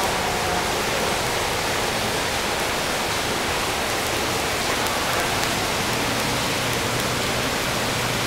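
Steady rushing noise of running water in an aquarium exhibit, with a faint low hum coming in about halfway through.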